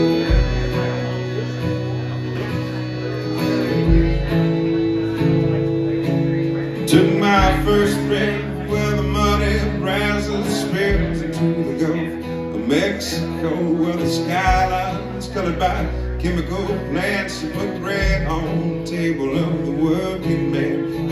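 Live country band playing a song: strummed acoustic guitar over drums, electric guitar, keyboard and accordion, with low bass-drum thumps. A melodic lead line comes in about seven seconds in.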